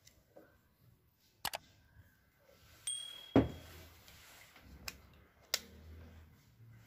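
Handling noise on a workbench: scattered plastic clicks and knocks as alligator-clip test leads are taken off an electric blanket's hand controller and the controller is set down and picked up, with one louder knock about halfway through. A brief faint high tone sounds just before that knock.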